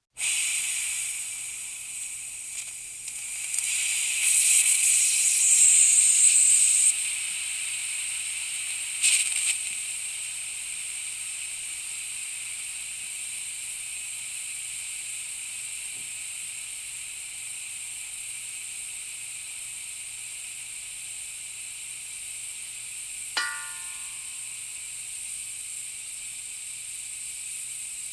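Compressed air hissing steadily out of a leaking air tank, a high-pitched hiss that starts abruptly, swells louder a few seconds in with a brief surge, then settles to an even hiss.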